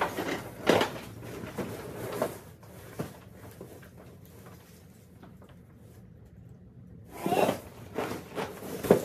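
Plastic rustling and crinkling as a Christmas tree storage bag and the plastic wrapping inside it are handled and rummaged through. It comes in irregular bursts, with a quieter stretch in the middle.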